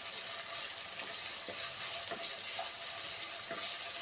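Chopped onions and ginger-garlic paste sizzling in hot oil in a non-stick kadhai, stirred with a wooden spatula that gives a few soft scrapes against the pan.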